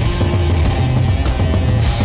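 Loud heavy rock band playing: guitars, bass and drums, with drum and cymbal hits cutting through a dense, bass-heavy wall of sound.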